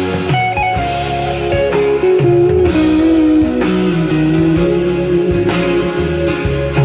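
Guitar-led music with a bass line, played back through a push-pull tube amplifier and JBL speakers.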